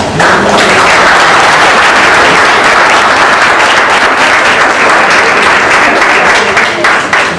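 Audience applauding: a dense round of hand clapping that starts just after the beginning and thins out near the end.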